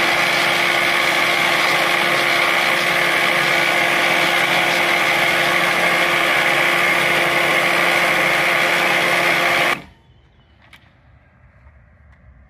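Fiskars StaySharp reel mower driven by a Ryobi 40-volt battery motor, running steadily as its spinning reel cuts grass. It cuts off abruptly about ten seconds in.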